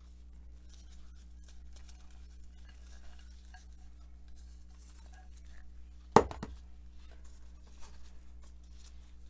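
Quiet rustling and small clicks of gloved hands spreading food on a cutting board. About six seconds in a bowl is set down hard on the countertop with one sharp clack and a couple of lighter knocks after it. A steady low hum runs underneath.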